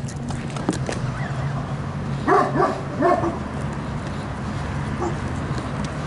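A dog barks twice in quick succession, about two seconds in, over a steady low hum.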